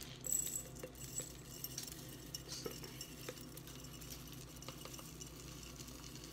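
Dry rolled oats poured from a plastic measuring cup into a glass mason jar: faint, scattered pattering of flakes with small clinks against the glass.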